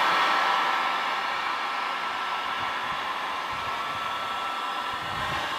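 Electric heat gun running steadily, its fan blowing hot air with a thin, steady whine, easing off a little after the first second. It is heating a PVC pipe to soften it for bending.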